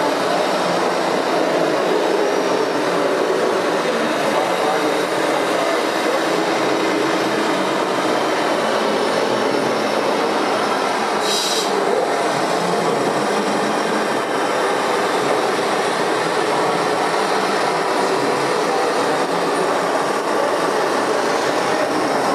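Steady mechanical running noise of RC model trucks driving, with a brief high hiss about eleven seconds in.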